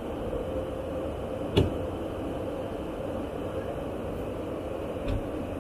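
Steady drone of engine and airflow noise inside a KC-135 Stratotanker's boom pod, with a steady hum running through it. A sharp knock comes about a second and a half in, and a softer one near the end.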